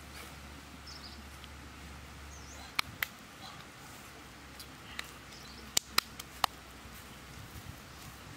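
A handful of sharp clicks and knocks, about seven, two close together about three seconds in and four more in quick succession around six seconds, over a quiet outdoor background with a few faint bird chirps.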